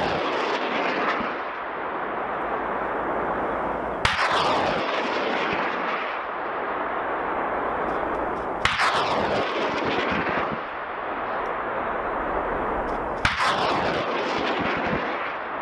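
M270 Multiple Launch Rocket System firing rockets in a ripple: three launches about four and a half seconds apart, each a sharp blast followed by a rushing roar that falls in pitch, with the roar carrying on between launches.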